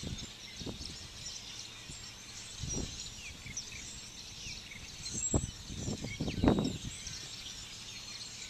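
Many small birds chirping in the background, short quick calls overlapping throughout, with a few brief low bumps on the microphone about three, five and six seconds in.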